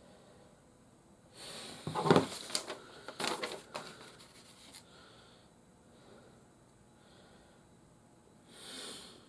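Hard plastic toy parts being handled and pressed together, rustling with a few sharp clicks, about two seconds in and again between three and five seconds in.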